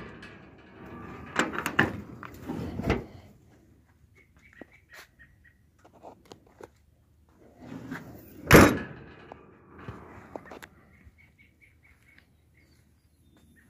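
Steel utility-body compartment doors and latches being worked: clunks and rattles in the first three seconds, then one loud door slam about eight and a half seconds in, followed by smaller knocks. Faint short chirps can be heard in the quiet gaps.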